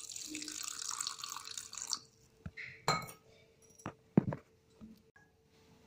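Water poured into a steel mixer-grinder jar of ground chutney mixture, a splashing pour that stops about two seconds in. A few sharp knocks follow, the loudest about four seconds in.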